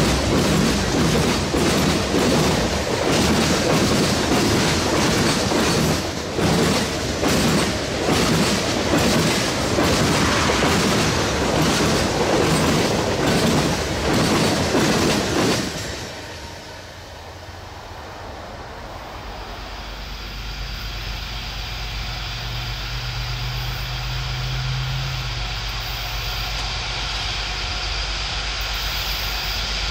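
Freight train rolling past close, its wheels clicking in a steady rhythm over the rail joints; the sound stops suddenly about halfway through. A quieter low rumble follows and slowly grows.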